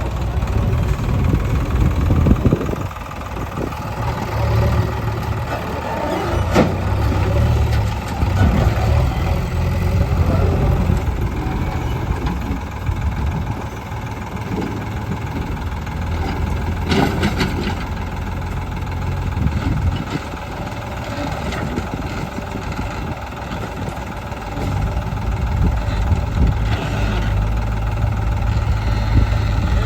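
JCB 3DX backhoe loader's diesel engine running and rising and falling under load as it works. A few sharp knocks cut through, about a third of the way in and again past the middle.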